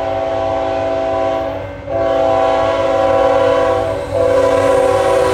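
A freight locomotive's multi-chime air horn sounding a chord of several notes for the grade crossing, in long blasts with short breaks about two and four seconds in.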